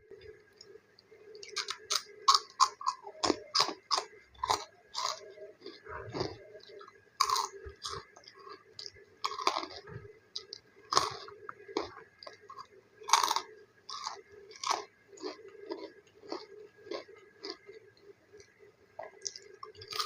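Close-miked chewing of a crispy snack: a run of sharp, irregular crunches, several a second, with pauses between bites.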